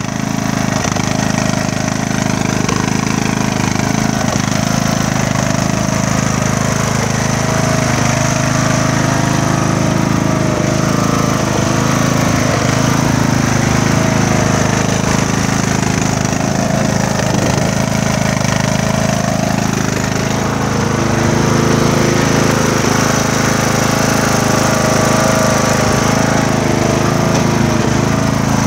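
Craftsman riding mower's engine running steadily just after starting, with a slight misfire.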